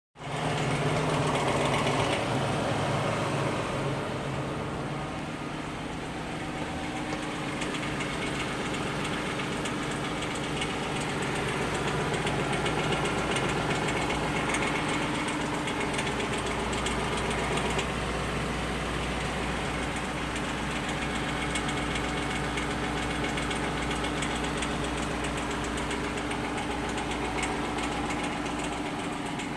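Lexus LS460's 4.6-litre V8 running steadily at idle, with a rapid clicking over the engine sound.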